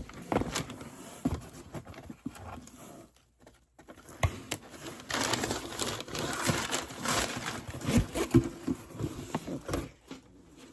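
Packaging being handled: scattered taps and clicks, then, about halfway through, several seconds of dense rustling and crinkling.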